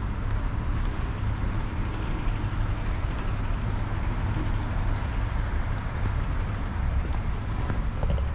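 Steady outdoor ambient noise: a low rumble under an even hiss, with no distinct events.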